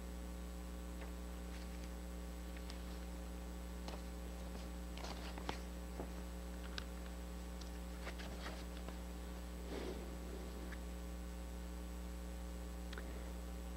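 Steady electrical mains hum in the sound system, with faint paper rustles and small clicks as a sheet of paper is handled at the lectern in the middle of the stretch.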